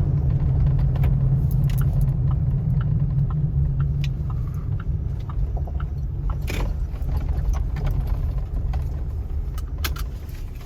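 Tire and road noise inside the cab of a Chevrolet Colorado pickup: a low drone that fades after about four seconds as the truck slows and pulls over, with light clicks and rattles. The drone comes from cupped all-terrain tires, which the mechanic takes for a tire issue rather than a worn wheel bearing.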